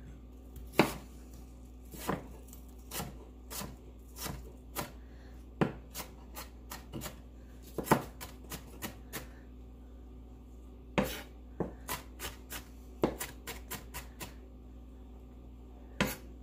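Kitchen knife chopping red onion on a bamboo cutting board: irregular knocks of the blade against the wood, in short runs, with a pause of about a second and a half near the middle.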